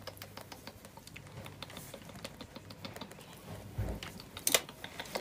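Many quick, irregular soft clicks and wet ticks from fingers working through a baby vervet monkey's wet fur during a bath, with a sharper click about four and a half seconds in.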